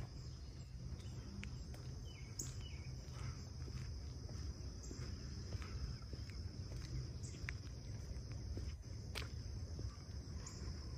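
Insects trilling in one steady, high-pitched drone, with a low rumble of wind on the microphone.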